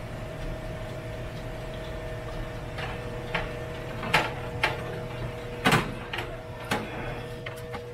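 A metal baking tin is shifted on an oven rack, making a series of sharp clicks and knocks about seven or eight times; the loudest comes about six seconds in. A steady hum runs underneath throughout.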